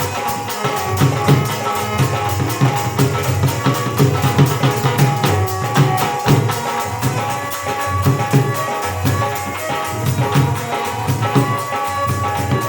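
Live folk music with hand drums beating a fast, steady rhythm under sustained held melody notes, played loud over a sound system during a sound check.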